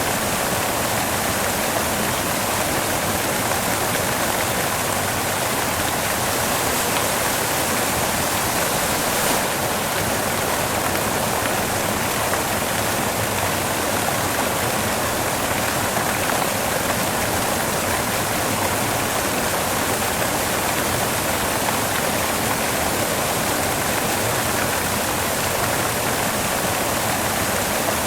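Steady white noise: an even, unchanging hiss with no rhythm or events.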